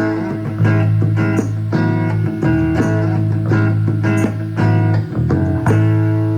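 Acoustic guitar strumming chords over bass guitar in the instrumental ending of a song. A final chord is struck about five and a half seconds in and left ringing.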